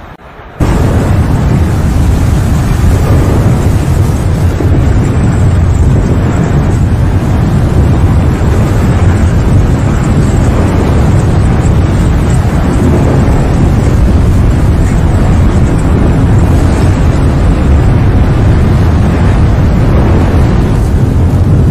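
A loud, steady, low rumbling roar that starts abruptly about half a second in and holds without a break.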